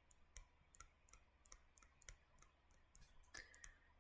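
Near silence with faint, irregular light clicks, roughly two a second, a little stronger near the end.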